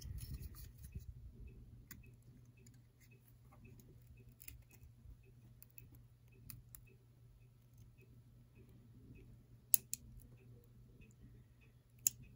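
Faint scattered clicks and scraping of a blade cutting through the glued screen edge of a Facebook Portal smart display, with two sharp cracks in the last few seconds as the screen glass cracks.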